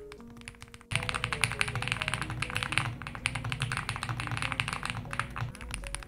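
Typing on a Weikav Record aluminium-cased Alice-layout mechanical keyboard with stock Sarokeys BCP linear switches and ABS cherry-profile keycaps, over background music. About a second in, the typing turns into a fast, dense, louder run of keystrokes.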